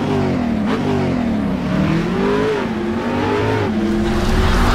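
Car engine revving as it accelerates, its pitch climbing and then dropping back several times.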